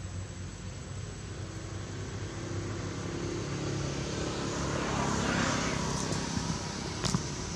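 A distant engine droning, growing louder for a few seconds and then easing off as it passes. A sharp click comes near the end.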